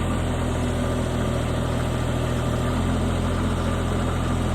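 Mini skid steer's 23-horsepower diesel engine running steadily, its pitch holding even throughout.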